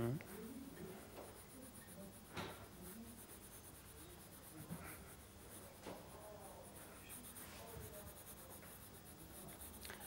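Pencil shading on sketch paper: faint, soft scratching strokes of graphite, with a light tap about two and a half seconds in.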